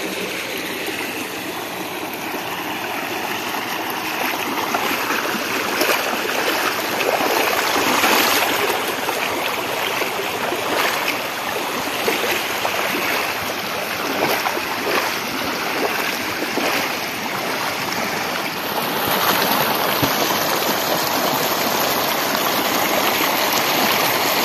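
Floodwater rushing fast over an embankment road and spilling into flooded paddy fields: a steady, loud rushing.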